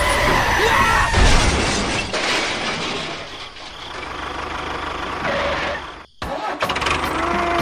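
A crash sound effect: a long noisy smash and clatter as a toy train hits a model tractor, loudest about a second in and fading over the next few seconds. After a brief break near the end, an engine sound starts running.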